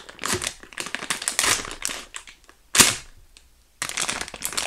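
Clear plastic packaging bag crinkling and rustling as it is handled and cut open with scissors, with one sharp snip about three seconds in, the loudest sound.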